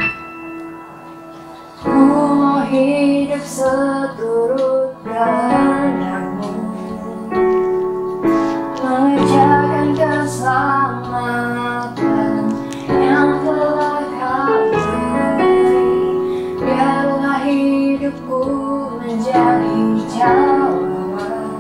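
Indonesian Christian children's worship song sung by a female voice over piano accompaniment. The singing comes in about two seconds in, after a short piano passage.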